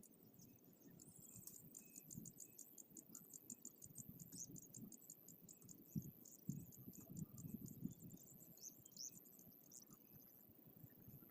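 Faint, fast high-pitched chirping, with a few short sliding calls among it. Some soft, dull low knocks come about six to eight seconds in.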